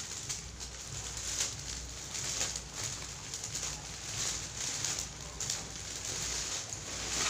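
Rustling and crackling of a large, shiny, heavy curtain as it is held up and then gathered and folded by hand.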